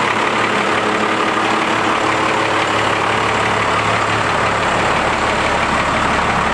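Cummins 24-valve diesel with compound turbos idling steadily while the pickup creeps forward at idle, with no ticking that would point to an exhaust leak after the turbo install.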